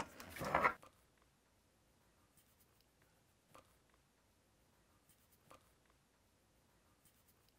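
Pencil marking a wall tile through the pre-drilled holes of a shower-enclosure wall channel: one short scratch at the start, then a couple of faint ticks.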